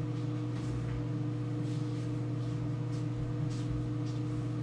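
Steady low electrical hum with a few faint brief noises over it.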